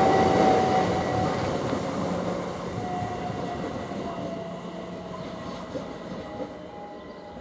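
Class 387 electric multiple unit slowing to a stop at the platform: a slowly falling whine and a steady high squeal over the rumble of the train, all fading away.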